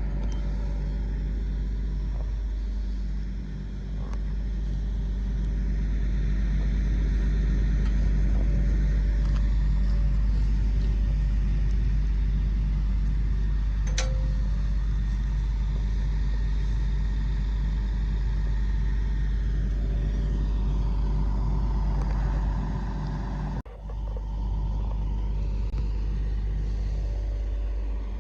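Cummins diesel engine of a self-loading logging truck running steadily to power the loader hydraulics as the trailer is lifted up onto the truck, a little louder through the middle. A single sharp click about halfway through.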